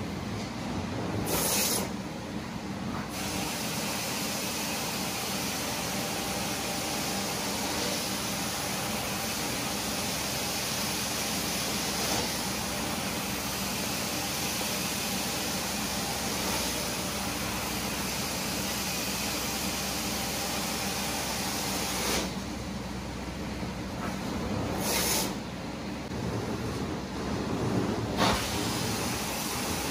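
Carpet cleaning extractor wand spraying and vacuuming carpet: a steady rushing hiss that thins briefly about two seconds in and again near the end.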